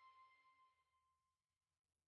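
Near silence: the last held note of the background music fades away within about the first second.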